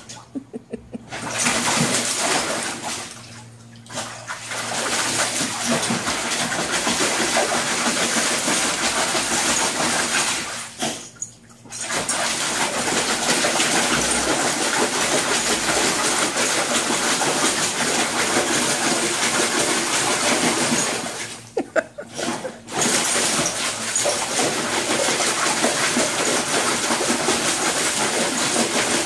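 A pit bull splashing and pawing at the water in a plastic kiddie pool: a steady rush of sloshing, splattering water that breaks off briefly a few times.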